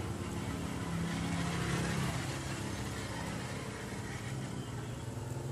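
An engine running steadily, with a brief rise in pitch and level about one to two seconds in.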